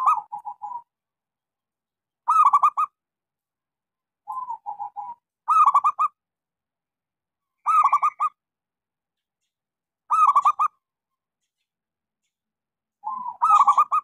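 Local perkutut (zebra dove) cooing: short bubbling coo phrases around 1 kHz, repeated about every two seconds with clean pauses between, some with a softer lead-in note just before them.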